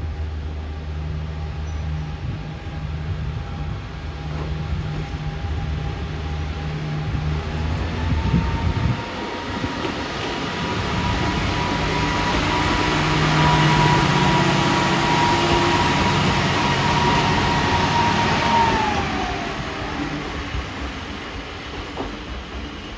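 A pair of KiHa 40 diesel railcars pulling out of a station. A low diesel engine note drops out about nine seconds in. A steady high whine then carries on and slides down in pitch near the end, while the rumble of wheels on rail swells as the cars pass and then fades as they move away.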